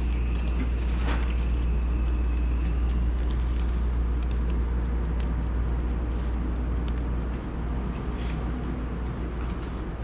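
Steady low rumble with scattered light paper flicks and rustles of banknotes being counted by hand.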